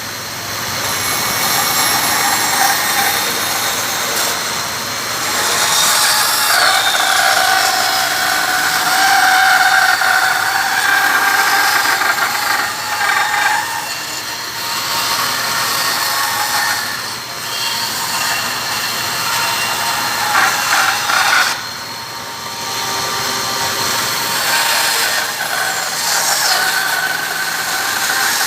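Power saw cutting wood: a steady motor tone over the noise of the cut, with brief dips in level where the cut eases off.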